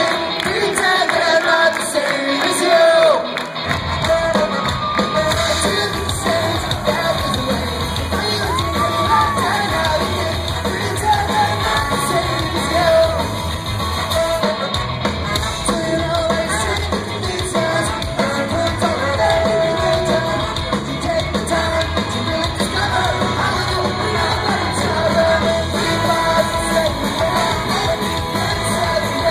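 Live ska-punk band with horns (saxophone and trombone), electric guitars, bass and drums playing loudly, with sung and shouted vocals. The low end of the band comes in about three and a half seconds in.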